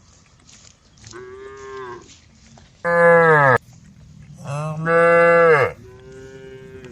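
Cows mooing: four long calls, the second and third louder and deeper than the fainter first and last.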